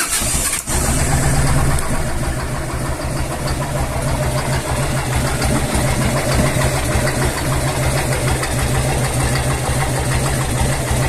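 Harley-Davidson Evolution 1340 V-twin engine idling with a steady knock, a very bad sound that the owner takes for a dying crankshaft.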